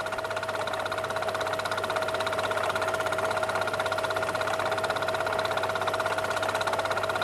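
Film projector running: a steady mechanical whir with a fast, even clatter and a held tone.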